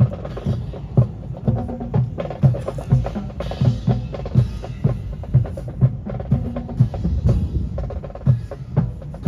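Percussion-led music with a steady bass-drum beat about twice a second and sharper wood-block-like knocks over it.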